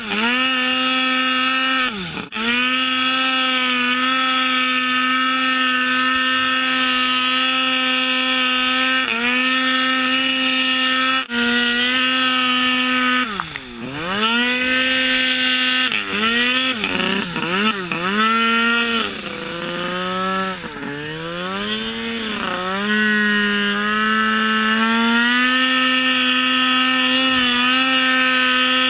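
Turbocharged Arctic Cat M8 snowmobile's two-stroke engine held at high, steady revs under load in deep powder. The throttle is briefly lifted and reopened a few times, with a stretch in the middle where the revs fall and climb again and again before settling back to a steady pitch.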